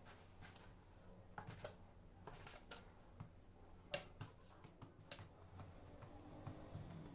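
Faint scattered taps and clicks of a metal bench scraper cutting through dough and knocking on a wooden board, with the dough pieces being handled; the sharpest tap comes about four seconds in. Otherwise near silence.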